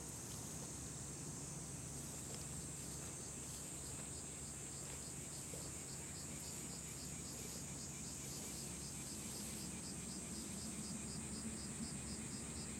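Insects calling in grass: a steady high-pitched buzz, joined a few seconds in by an evenly pulsed chirping, over a low steady rumble.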